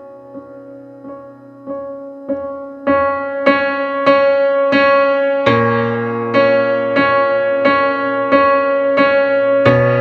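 Background music: electric piano chords with evenly repeated notes, swelling louder a few seconds in.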